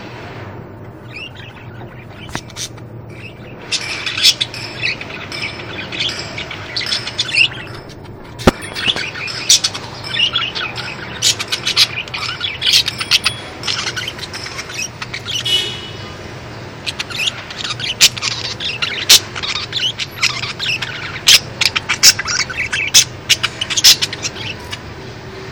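Pet lovebirds chirping in many short, sharp calls, sparse at first and busy from about four seconds in, over a steady low hum.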